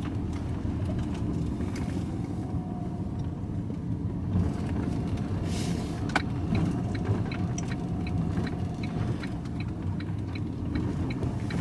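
Steady engine and road rumble heard from inside a moving vehicle's cab. A single sharp click comes about six seconds in, followed by light regular ticking, about three a second, through the second half.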